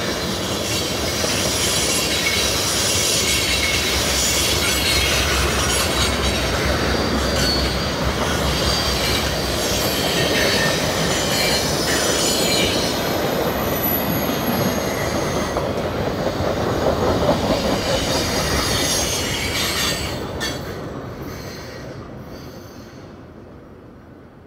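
Canadian National manifest freight train's tank cars rolling past close by, a steady loud clatter and rumble of steel wheels on the rails. The sound fades away over the last few seconds.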